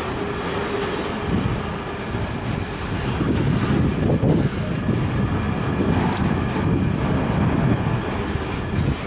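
Freight train of loaded container flat wagons rolling past, a steady rumble and clatter of wheels on the rails.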